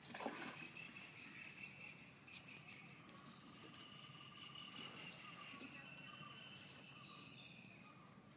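Faint, steady high-pitched calls of wild animals, held for seconds at a time, with a lower note that pulses quickly, over an otherwise quiet background. A brief knock comes just at the start.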